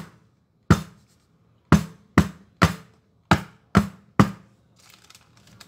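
A square baking pan of pandan sponge-cake batter being lifted and dropped onto the countertop, about seven sharp knocks over the first four seconds. This knocks the air bubbles out of the batter before baking.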